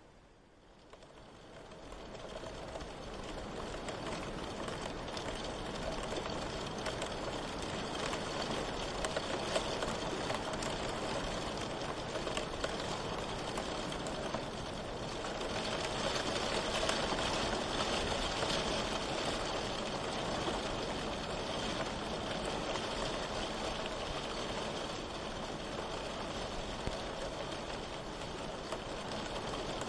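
Steady rain falling: a dense, even patter that fades in over the first couple of seconds, then holds.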